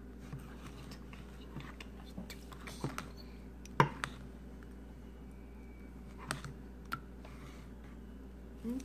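Metal spoon stirring slime in a plastic container: scattered clicks and taps of the spoon against the container, the loudest a sharp knock a little under four seconds in.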